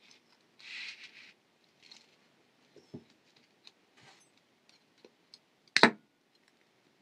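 Quiet handling of thin brass wire and a steel ruler: a short rustle about a second in, scattered light ticks, then one sharp snip near the end as wire cutters cut the 22-gauge brass wire.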